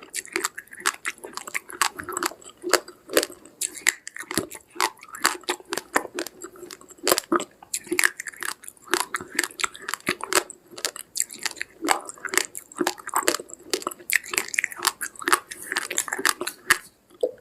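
A person chewing uncooked rice grains close to the microphone: dense, irregular crunching and cracking clicks.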